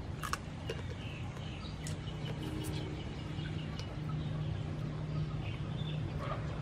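Outdoor rural ambience: chickens clucking and small birds chirping over a steady low hum. A few sharp clicks come from a person eating crab by hand.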